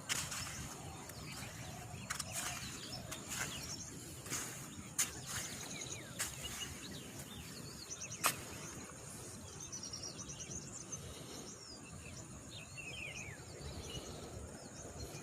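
Outdoor riverside ambience with a steady low hiss and small birds chirping, the chirps coming thick from about halfway through. Several sharp clicks or knocks sound in the first half, the loudest a little past the middle.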